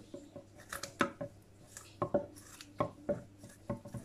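Kitchen scissors snipping through raw salmon: a run of irregular sharp snips, about ten in four seconds.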